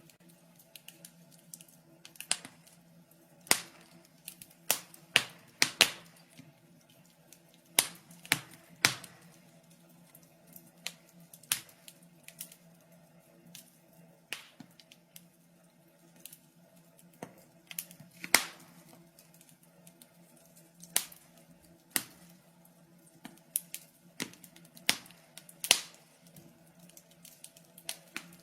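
Wood fire crackling in a fireplace: irregular sharp pops and snaps, several loud, over a faint steady hum.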